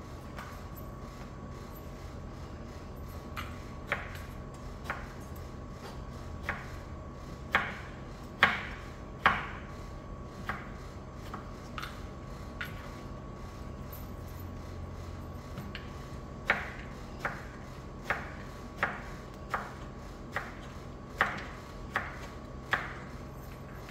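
Kitchen knife slicing aubergine on a plastic cutting board: sharp knocks of the blade striking the board, irregular at first, then a steady run of about one a second in the second half.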